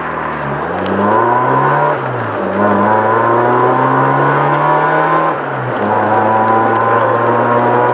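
Car engine accelerating through the gears: its pitch climbs steadily, falls at a gear change about two seconds in and again near five and a half seconds, then holds steady.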